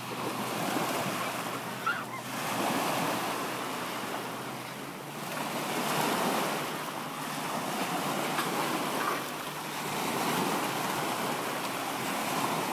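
Small waves breaking and washing up a sandy beach in the shallows, the rush of surf swelling and easing every few seconds.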